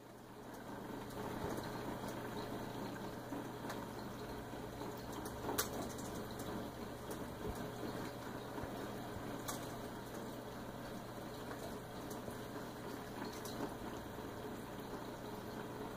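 Saltwater reef aquarium's circulating water: a steady wash of moving water over a low pump hum, with two sharp clicks about five and a half and nine and a half seconds in.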